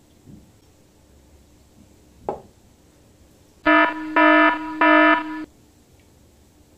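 A harsh alarm-buzzer sound effect beeps three times in quick succession, each beep about half a second long. A little earlier, a cleaver chops once against a plastic cutting board.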